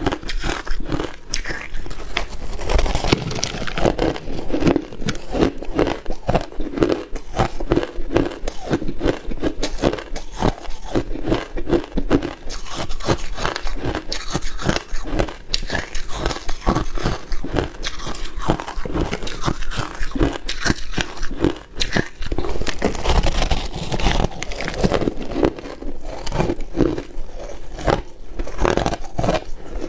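Hard crushed ice being bitten and chewed close to a clip-on microphone: a dense run of sharp crunches and crackles, several a second.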